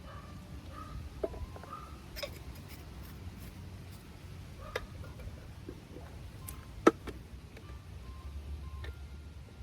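A few sharp clicks and knocks from a water pipe fitting being handled as a joint is made, the loudest about seven seconds in, over a steady low rumble.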